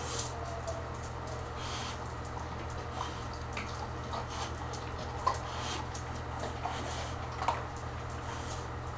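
Scattered small clicks and taps from a dog moving about and mouthing a toy on a hard floor, the sharpest about five seconds in, over a steady low hum.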